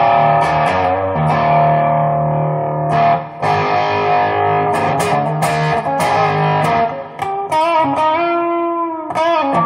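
Squier Telecaster with Esquire wiring, played on its bridge pickup through the tone control into an overdriven amp with a little reverb. It plays sustained chords and picked notes, with string bends near the end.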